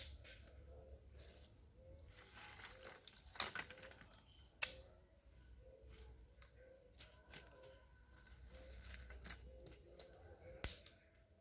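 Dry leaves and twigs rustling and crackling as they are handled, with a few sharp snaps, one right at the start, one about halfway through and one near the end.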